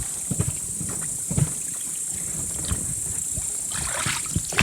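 Scattered light knocks and handling sounds in a small fishing boat on the water, over a steady high hiss.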